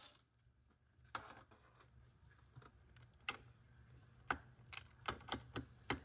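Faint, irregular small metallic clicks and taps from bolts and tools being handled on a transmission valve body. The clicks come closer together in the last couple of seconds, over a low steady shop hum.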